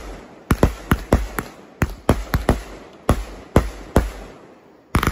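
Fireworks going off: about a dozen sharp bangs and pops in quick, irregular succession.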